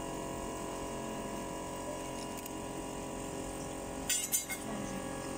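Steady machine hum of many even tones while molten bronze bell metal is poured into a bell mould, with a short crackling clatter about four seconds in.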